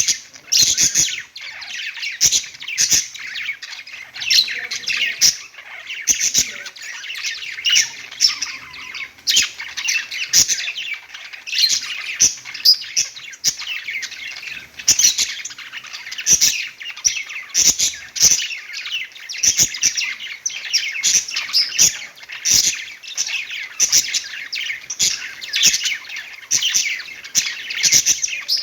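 Several pet budgerigars chirping and warbling without a break, with frequent short, sharp squawks mixed in.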